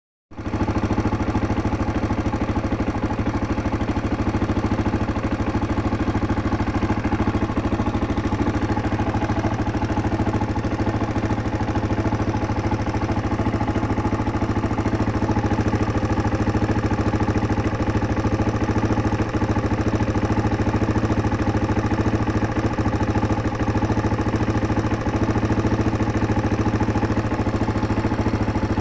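1999 Yamaha Serow's single-cylinder four-stroke engine idling steadily, with valve clatter from the top end, which the mechanic takes for valves that need adjusting.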